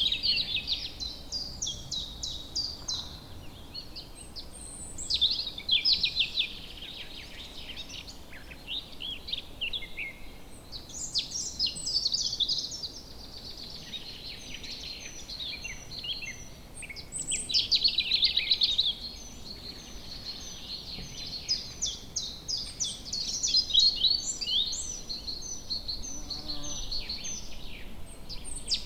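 Several songbirds singing and chirping at once, a dense chorus of rapid trills and twittering with short high repeated notes, over a faint steady background hiss.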